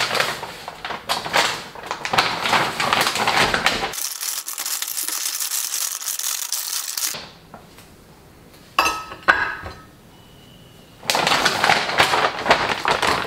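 A resealable plastic bag of frozen fish fillets crinkling and rustling as it is handled and a fillet is taken out. Partway through there is a quieter stretch broken by a couple of sharp clicks, then the crinkling starts again.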